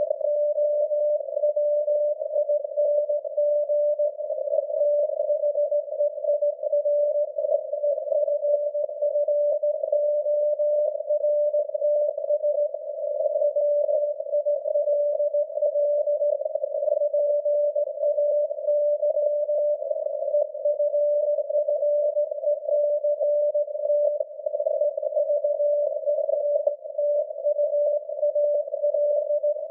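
SAQ Grimeton's Alexanderson alternator signal on 17.2 kHz, heard through a shortwave receiver's narrow CW filter as a thin steady tone buried in a narrow band of hissing noise. The transmission is coming in with high noise.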